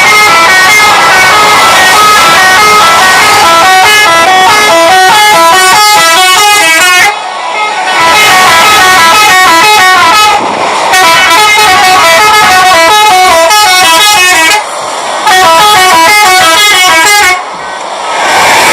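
Bus telolet horn, a multi-tone musical air horn, playing a loud, fast tune of short stepped notes. It plays in four phrases broken by brief pauses.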